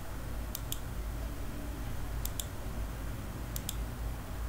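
Computer mouse clicked in three quick double-clicks spread across a few seconds, each a pair of short sharp clicks, over a steady low electrical hum.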